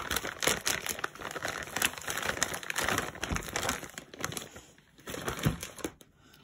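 Clear plastic bag crinkling as it is handled and a lump of plasticine clay is pulled out of it. The crinkling is irregular and dies away near the end.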